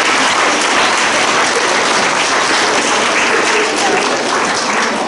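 A large audience of schoolchildren applauding, a steady dense clapping throughout that begins to thin near the end.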